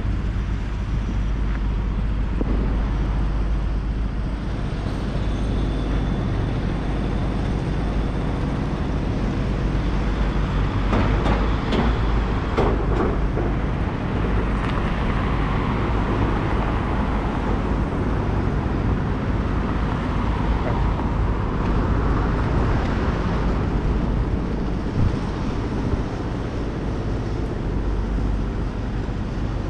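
City street traffic: cars and a van driving past over a constant low rumble. The traffic noise swells as vehicles pass near the middle and again in the second half.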